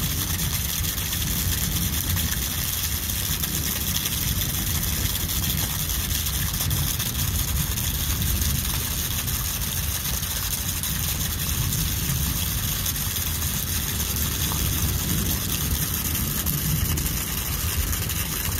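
Heavy rain falling steadily onto flooded ground and standing water, an even hiss with a low rumble underneath and no break.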